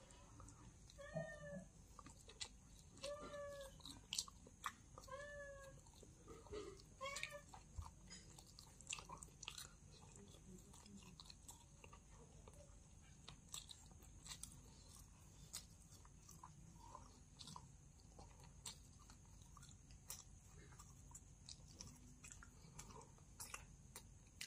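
A cat meowing faintly four times in the first seven seconds or so, each a short call that rises and falls, over soft mouth sounds of someone chewing food with small clicks and smacks. The chewing goes on alone after the meows stop.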